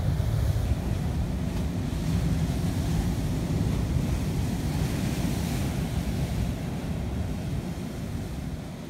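Ocean surf breaking on a rocky shore, with wind buffeting the microphone into a steady low rumble.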